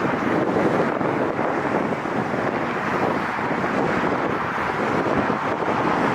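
Strong wind buffeting the microphone: a steady, rough rumbling noise with no distinct events.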